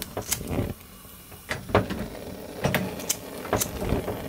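Sharp clicks and light knocks, about seven in four seconds, from a hand lighter and the stainless steel stove top as a marine gas stove's burners are lit, the second burner catching near the end. The burners light again once their rusted parts have been cleaned.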